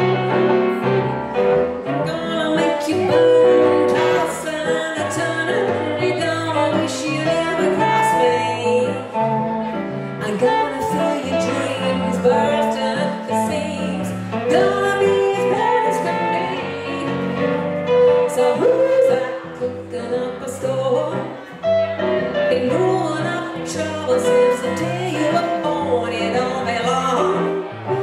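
Live blues music from a hollow-body electric guitar and an electric stage keyboard, with singing.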